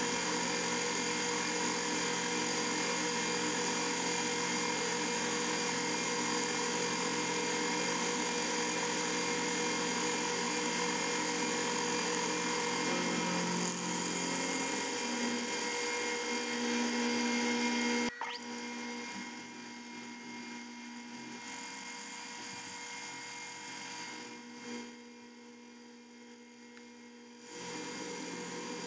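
Bridgeport milling machine running a 3/8-inch end mill through bar stock to cut a slot: a steady whine made of many fixed tones. About two-thirds of the way through, a sharp click, and the running becomes quieter.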